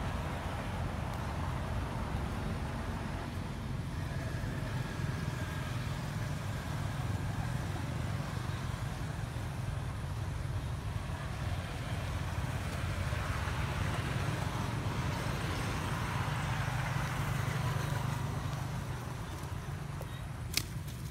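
Steady low outdoor rumble with a light hiss over it, and a single sharp click near the end.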